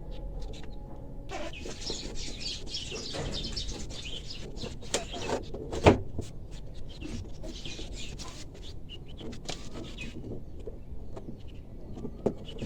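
Small birds chirping busily in the background, with scattered handling clicks and one sharp knock about six seconds in.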